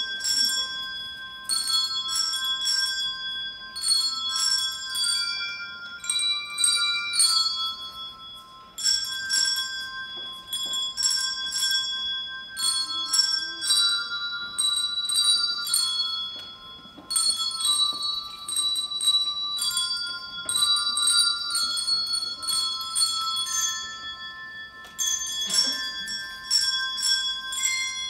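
Children ringing a set of colour-coded handbells, playing a slow melody one struck note after another, each note ringing on. The tune comes in phrases of about eight seconds with short pauses between them.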